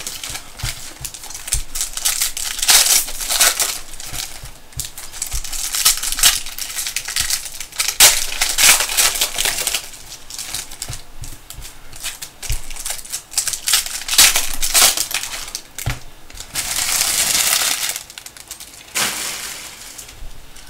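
Trading card pack wrappers crinkling and tearing open, with cards being handled, in irregular rustling bursts and clicks.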